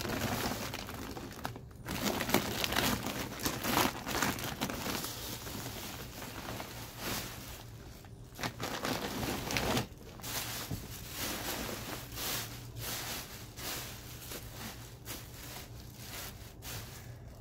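Thin plastic bags and a woven plastic bag crinkling and rustling as hands open, fold and rummage in them, an irregular run of crackles.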